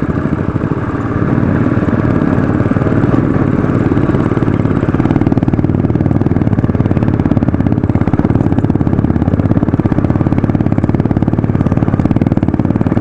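Royal Enfield Classic 500 single-cylinder engine running steadily under way, getting louder about a second in.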